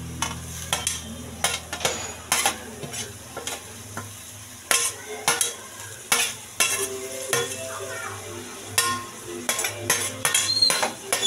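A steel spoon scraping coriander and mint leaves off a steel plate into a kadai and stirring them in, with irregular clinks and scrapes of metal on metal, a few a second, over a low sizzle of frying onions and tomatoes.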